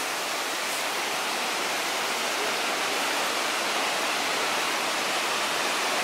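Mae Klang Waterfall rushing: the steady, even hiss of falling water pouring down the rock face.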